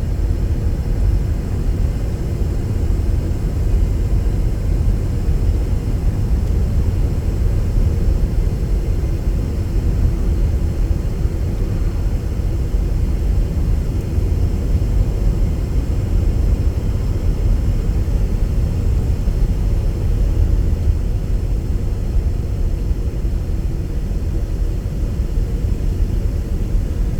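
Steady low rumble of road and engine noise inside a moving car, unchanging throughout.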